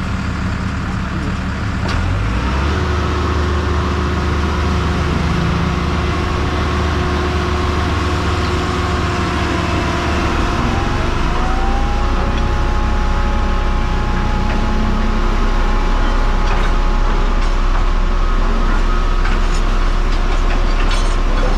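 A motor vehicle's engine running steadily, growing a little louder about two seconds in, with a whine that rises in pitch and then holds near the middle.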